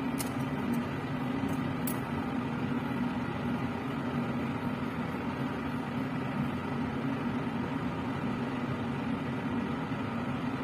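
Laminar air flow cabinet's blower fan running with a steady hum and rush of air, with a couple of faint clicks near the start.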